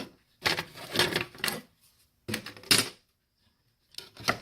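Small metal and plastic scrap parts clattering as they are handled on a workbench, in three short bursts about a second apart.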